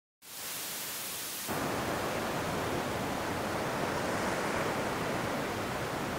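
Steady rushing of ocean surf as waves wash onto the beach, thin and hissy at first, then louder and fuller from about a second and a half in.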